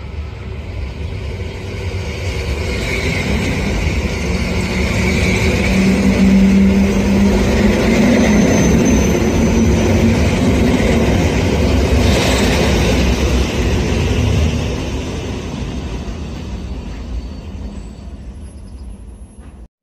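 EN71 electric multiple unit passing close by, its wheels running over the rails; the sound builds over the first few seconds, holds loud through the middle and fades away as the train goes.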